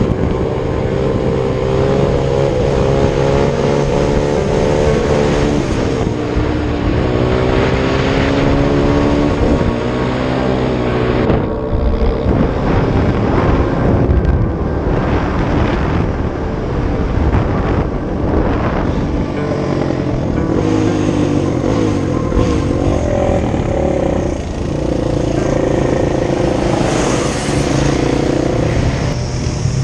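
Off-road vehicle engine running, its pitch rising and falling with the throttle.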